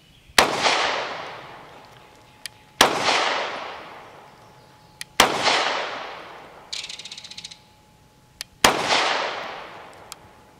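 Four single shots from a Bul Armory Axe C Hatchet 9mm pistol firing Fiocchi 115-grain FMJ, spaced about two and a half seconds apart in slow aimed fire, the last after a longer pause. Each shot has a long fading echo.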